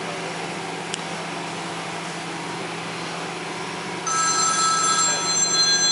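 A telephone bell rings once for about two and a half seconds, starting about four seconds in, over a steady background hum.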